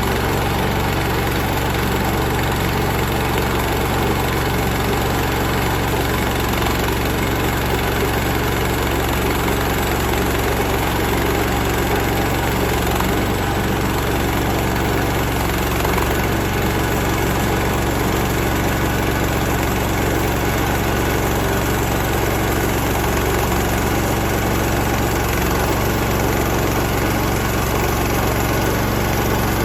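Portable bandsaw sawmill's small engine running steadily, driving the blade through its first cut in a log.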